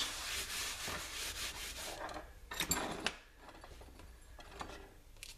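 Shop towel rubbed and wiped across a wooden workbench top, a steady rustling for the first couple of seconds, with a single light knock about two and a half seconds in.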